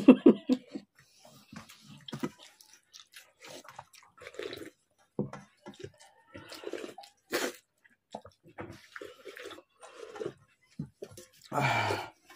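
Eating panta bhat by hand from steel plates: short, scattered wet squelches and slurps as fingers work the water-soaked rice and the soaking water is drunk straight from a tipped plate, with a longer, louder slurp near the end.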